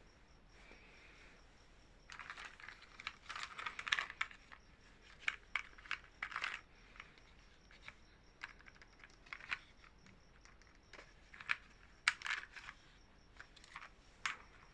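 Small items and their packaging being handled: irregular light clicks and taps with short bursts of rustling, busiest for a few seconds starting about two seconds in and again near the end.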